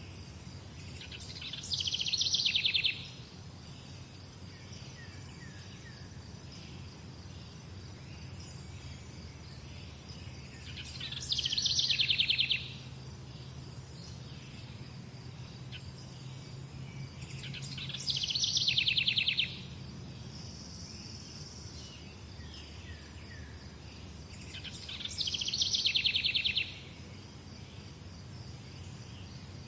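A bird singing a loud, rapid, high trill about a second and a half long, repeated four times at roughly seven-second intervals. Fainter bird chirps and a low steady hum lie beneath it.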